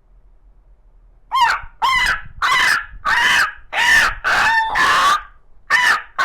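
A man imitating an animal with his voice: a series of short, loud, pitched calls, about two a second, starting just over a second in.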